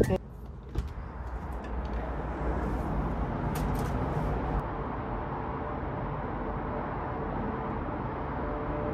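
Steady hum of city traffic heard from a high-rise balcony, with a few light clicks as the balcony door's handle and latch are worked.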